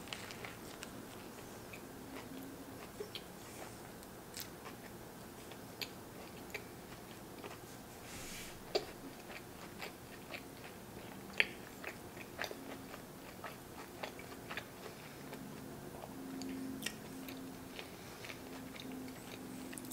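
Close-miked chewing of a bite of burger with onion rings and barbecue sauce: soft wet mouth sounds with scattered short crunches and clicks.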